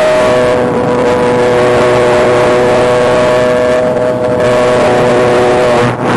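Electric motor and five-blade propeller of an E-flite Spitfire Mk XIV 1.2m RC plane, heard from onboard, running with a steady whine. Its pitch holds level and then dips briefly near the end.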